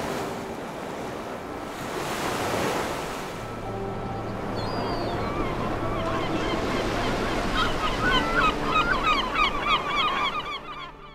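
Ocean surf washing onto a beach, with the steady hiss of the waves. From about halfway through, a flock of birds joins in with a growing chatter of quick overlapping calls. Both fade out near the end.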